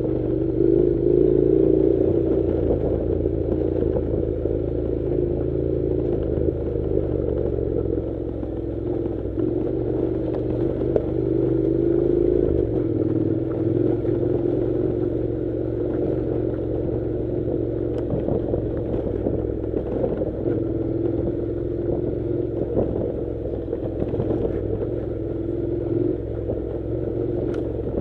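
Honda NC700's 670 cc parallel-twin engine running at low, fairly even revs over a rough dirt track, with clatter and occasional sharp knocks from the bike jolting over stones.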